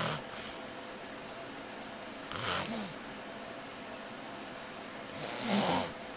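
A sleeping person snoring: three raspy snores about two and a half seconds apart, the last the loudest.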